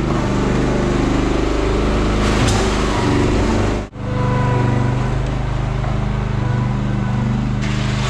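Small engine of a motorized concrete buggy running steadily as it dumps its load, with a brief dropout about four seconds in.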